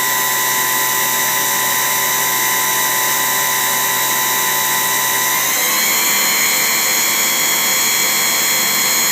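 Spindle of a Daewoo Lynx 200A CNC lathe running at about 4,000 RPM with a steady high whine of several tones. About five and a half seconds in, the whine rises in pitch as the spindle speeds up to the next step, about 4,500 RPM, and holds there.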